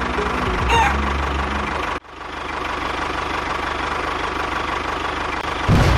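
An engine running steadily with a low hum. The sound cuts off abruptly about two seconds in, then an engine runs on more evenly, and a louder low burst comes near the end.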